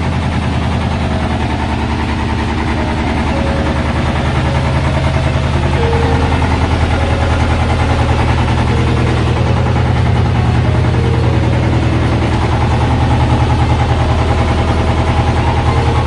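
Sailing yacht's inboard engine running steadily, heard from inside the cabin below deck as a loud, low, even drone with a fast pulse.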